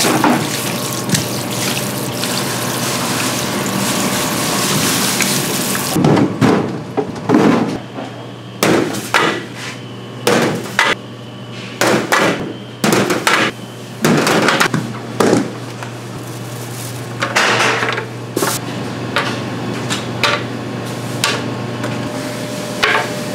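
Running water spraying over whole cutlassfish on a cutting board, cutting off suddenly about six seconds in. It is followed by repeated clanks and knocks of long metal grilling trays being handled and set down on a steel counter.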